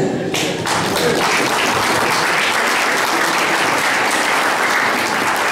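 Audience applauding, the clapping building over the first second and then holding steady.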